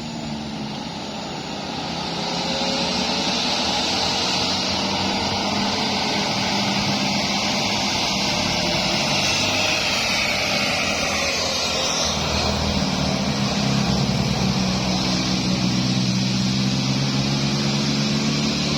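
Road vehicles climbing an uphill bend: engines running under load over a steady hiss of tyre and road noise. The sound swells over the first few seconds as a vehicle draws near, and the engine pitch drifts up and down as they pass.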